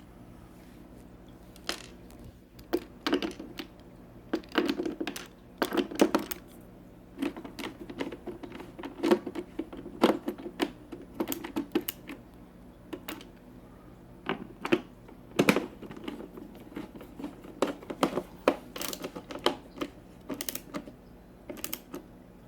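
Irregular clicks and taps of small plastic and metal parts being handled and fitted, a few a second, some louder knocks among them: hands reassembling a cooking appliance's housing.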